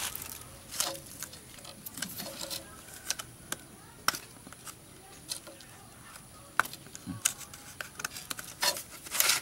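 Irregular light clicks and taps of cord being wound and knotted around a paper-wrapped wooden stick, with a cluster of louder clicks near the end.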